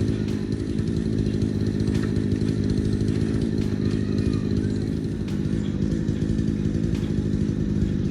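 An engine running steadily at constant speed, loud and unchanging throughout.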